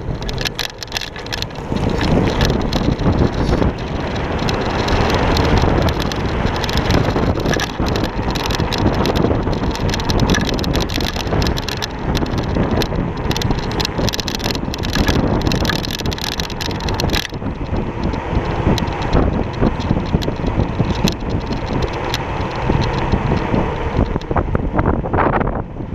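Kaabo Wolf King GT electric scooter riding along a street: steady road and tyre noise with wind buffeting the deck-mounted microphone, broken by frequent short rattles and knocks from bumps in the road.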